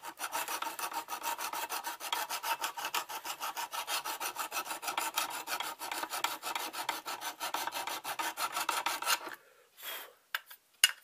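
Hand file scrubbed rapidly back and forth over knife steel, about six short rasping strokes a second, scoring the surface with scratches ahead of epoxying. The filing stops abruptly about nine seconds in, followed by a couple of faint clicks.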